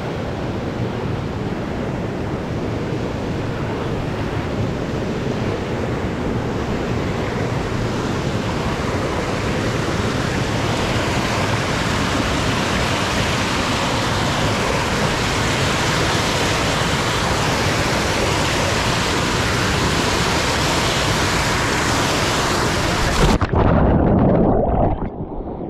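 Waterfall rushing steadily close by, slowly growing louder. About 23 seconds in the microphone plunges into the pool with a splash, and the rush turns muffled and dull under water, full of bubbles.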